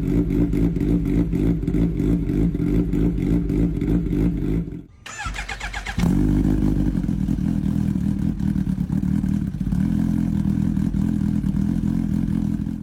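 Kawasaki Ninja sport motorcycle engine running at a steady speed. About five seconds in, the sound drops out briefly and a short warbling high-pitched sound plays before the engine resumes steadily.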